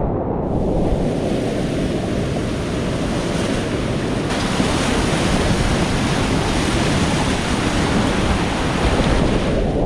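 Whitewater rapids rushing loudly and steadily, heard from the kayak's cockpit with wind and water buffeting the microphone. The sound turns brighter and hissier about half a second in, and dulls again near the end.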